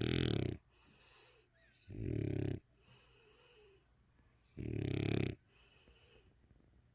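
French bulldog snoring: three loud snores, each under a second long, about two and a half seconds apart.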